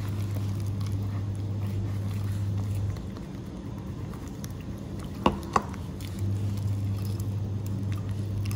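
A fork stirring thick, wet flour batter in a glass bowl, with wet squishing and light scraping. Two sharp clicks come about five seconds in, over a steady low hum that drops out for a few seconds in the middle.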